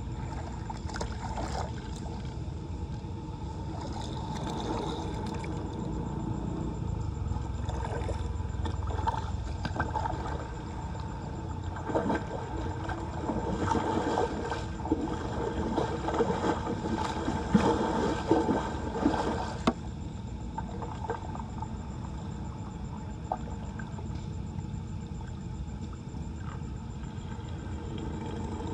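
Floodwater running and gurgling into a storm drain as it is being unclogged. An irregular stretch of splashing and clattering comes in the middle.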